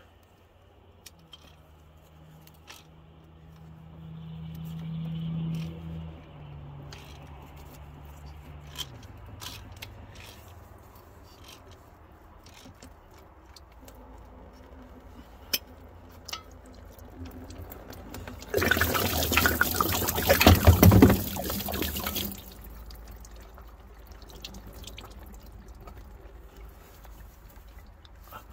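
Engine coolant rushing out of the open freeze-plug hole on a diesel tractor engine into a drain pan for about four seconds, amid small clicks of hands and tools. A low hum swells and fades in the first several seconds.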